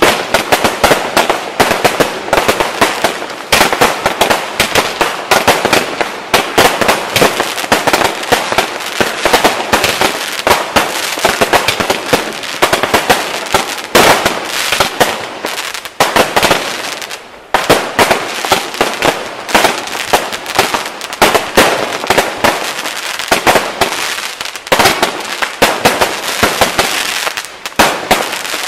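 Professional fireworks display heard at close range from the firing site: a rapid, near-continuous barrage of bangs and crackle, with a short lull a little past the middle before it picks up again.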